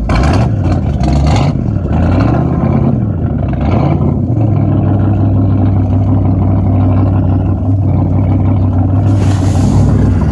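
Chrysler 440 big-block V8 marine engine in a wooden Chris-Craft just after a cold start: the revs rise and fall a few times, then settle into a steady idle about four seconds in. Near the end a rush of churning water joins in at the stern.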